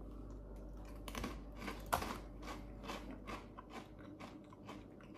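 Crunchy Takis rolled corn tortilla chips being chewed: a run of sharp crunches, about three a second, the loudest about two seconds in.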